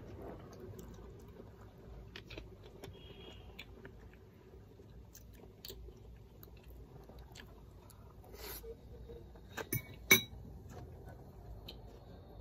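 Someone chewing fruit while a metal fork knocks and scrapes against a porcelain bowl, in scattered light clicks, with one sharp clink about ten seconds in.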